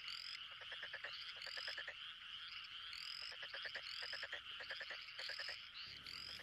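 Frogs croaking in quick rattling runs, each run a string of rapid pulses, repeating every second or so over a steady high chorus, with short rising chirps mixed in. It is a faint night-time chorus.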